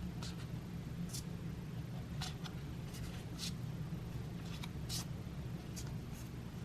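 Baseball trading cards being flicked through by hand, one slid behind another, giving about ten brief papery swishes at irregular intervals over a steady low hum.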